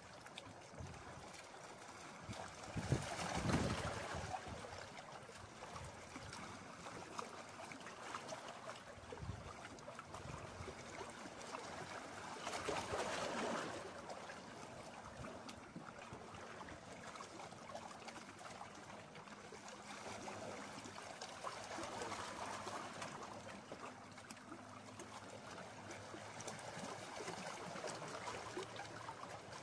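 Small sea waves lapping and washing over shoreline rocks, swelling louder twice, a few seconds in and again about halfway through.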